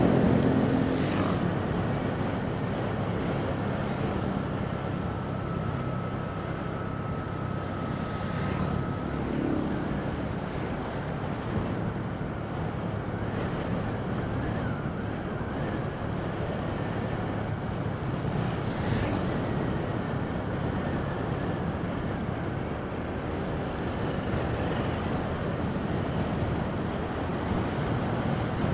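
Steady engine and road noise of a vehicle being driven along a road at a constant pace.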